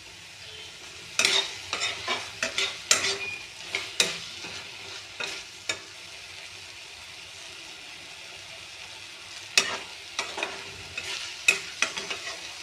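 A spoon stirring tomato chutney in a pan, scraping the pan in clusters of sharp strokes over a steady low sizzle of frying. In the middle the stirring pauses and only the sizzle is heard, and then the scraping starts again.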